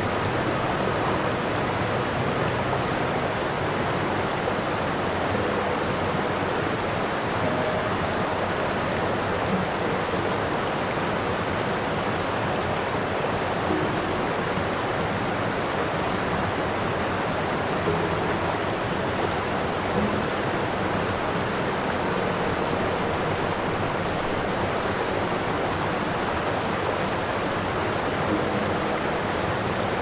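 A steady, even rushing noise with no clear animal calls, only a few faint brief tones here and there.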